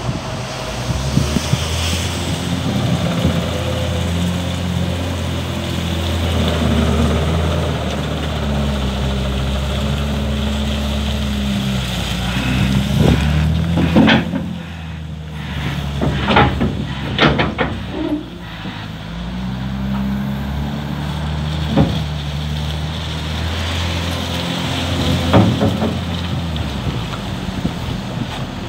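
Diesel engine of a JCB 426Z wheel loader running and revving under load, its pitch rising and falling as the machine works. In the middle come several sharp metallic knocks and clunks.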